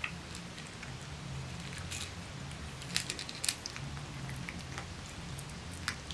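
Six-week-old Boston terrier puppies crunching dry kibble from a metal pan: scattered crisp clicks and crunches, a few louder about three seconds in and near the end, over a steady low hum.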